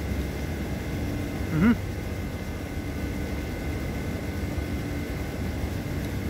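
Steady low outdoor rumble with a faint constant hum. About one and a half seconds in, a man gives a short hummed 'mm' that rises and falls in pitch.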